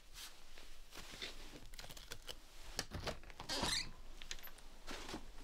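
Knit gloves being pulled on: soft fabric rustling with small scratchy clicks. About three and a half seconds in, a louder burst as a door knob is turned and the door is opened.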